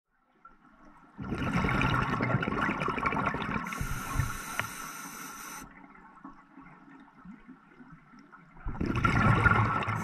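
Scuba diver breathing underwater through a regulator: a loud rush of exhaled bubbles starting about a second in, a quieter stretch, then another burst of bubbles near the end.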